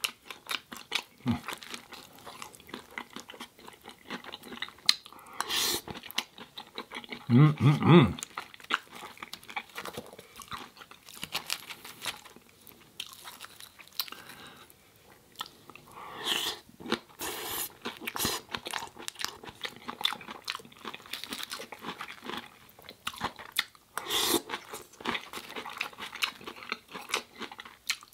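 Chewing and crunching of a vegan taco salad bowl with a crisp tortilla shell, many sharp crunches in quick succession. A brief low hum about seven seconds in is the loudest sound.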